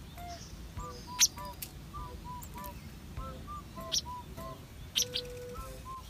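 White wagtail giving a few sharp, high chirps, the loudest about a second in and more near four and five seconds, over soft background music of short melodic notes.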